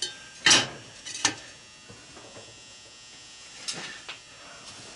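Metal clunks and knocks as an electric motor and its end bell are set down onto a steel tube stand on a steel workbench. There are two sharp knocks about half a second and a second and a quarter in, then two lighter ones near the end.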